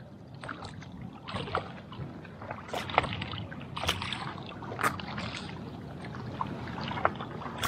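A hooked peacock bass thrashing at the water's surface in the shallows: a run of short, irregular splashes.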